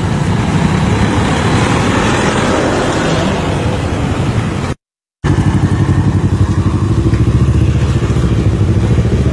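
A motor vehicle engine running close by amid outdoor road noise, with a low, fast, steady pulsing. The sound cuts out completely for about half a second about five seconds in.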